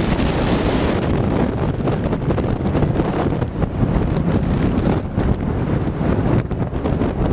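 Storm-force wind buffeting the microphone in a loud, continuous rumble that swells and eases with the gusts.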